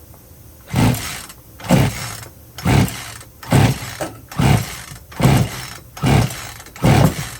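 Poulan Pro 42 cc two-stroke chainsaw's recoil starter pulled eight times in quick succession, the engine cranking over without firing, for a compression test with the throttle held wide open.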